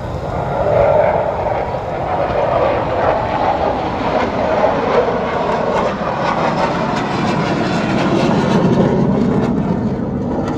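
Jet aircraft engine noise: a loud, continuous rush that gradually deepens in pitch over several seconds.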